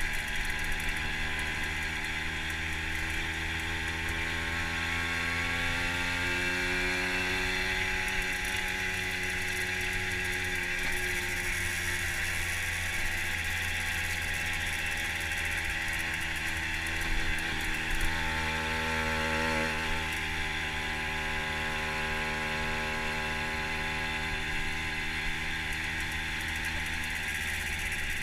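Fantic TI sports moped's two-stroke engine running while riding, over a steady rushing noise. Its pitch climbs about five to eight seconds in and wavers again around eighteen to twenty seconds.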